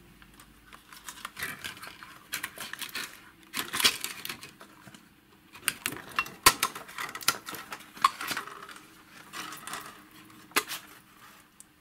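Irregular metallic clicks, knocks and rattles of an avionics unit's metal chassis and hinged circuit boards being handled, sharpest about four and six and a half seconds in.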